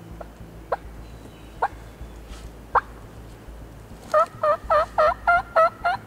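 Turkey clucks and yelps: three sharp single clucks about a second apart, then, about four seconds in, a quick, louder run of about seven yelps.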